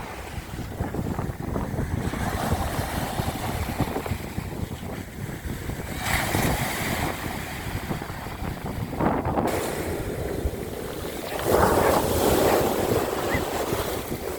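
Sea waves breaking and washing onto the shore, with wind rumbling on the microphone. A wave surges about six seconds in, and a louder one breaks about two-thirds of the way through.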